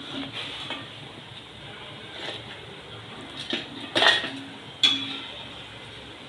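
A steel spatula scraping and clinking against a non-stick kadhai and a steel plate as fried chilli pakodas are lifted out of the oil, with two sharp clinks about four and five seconds in, over a faint steady sizzle of the oil.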